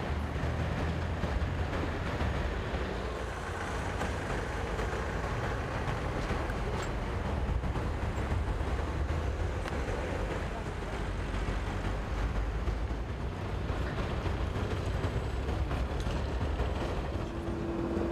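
Steady low rumble of idling vehicle engines and street traffic. A steady low tone sets in near the end.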